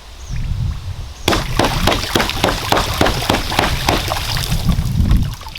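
9mm Glock 19 Gen 3 with maritime spring cups firing a rapid string of 147-grain rounds under water, about four or five shots a second from about a second in, over the slosh and rumble of disturbed water.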